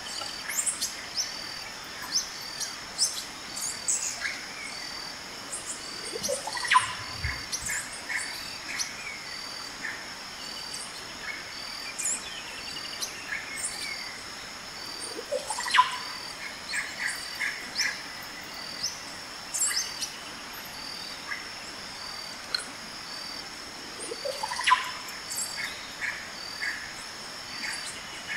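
Birds calling and chirping over a steady, pulsing insect trill. The same rising call followed by a quick run of chirps comes three times, about nine seconds apart.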